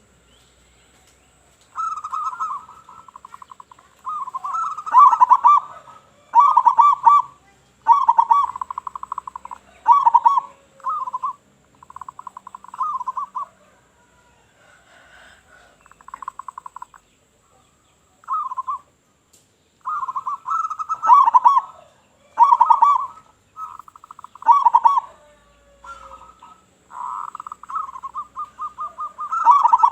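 Local-type zebra dove (perkutut) cooing in its full song: a long run of rolling, rapidly pulsed coo phrases, one after another with short gaps, starting about two seconds in.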